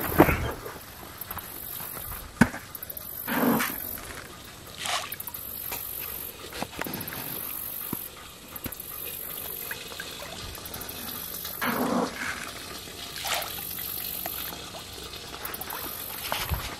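Fish taking food at a pond's surface: short splashes and slurps every second or few, at irregular intervals.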